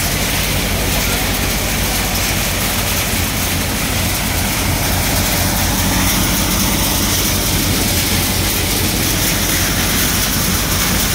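Kamdhenu hopper-model grain thresher running steadily at work: a loud, even low drone with a constant rushing noise over it from the drum and fan.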